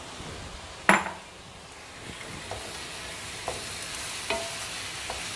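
Chopped tomatoes and bitter gourd frying in a stainless steel pan, sizzling steadily while a wooden spatula stirs them. There is a sharp knock about a second in and a few lighter taps later.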